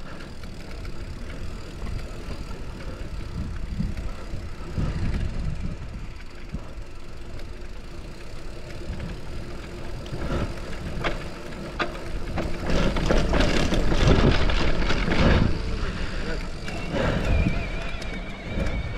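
Focus SAM2 enduro mountain bike being ridden over a dirt trail: tyres rolling over gravel and rocks, the bike clattering with sharp knocks, and a low rumble of wind on the microphone. It gets louder and rougher about two-thirds of the way through.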